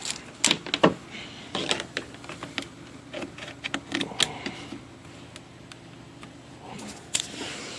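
Irregular plastic clicks and knocks from a laptop being handled and set up, a dozen or so spread unevenly, with the sharpest near the start and one near the end.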